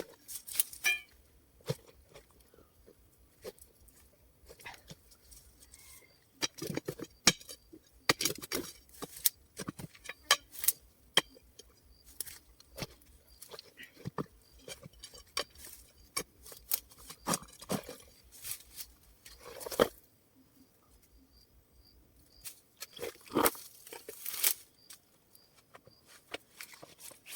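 A hand tool digging into hard, rocky ground: irregular sharp strikes, scrapes and crunches of soil and stones, broken by a few short pauses.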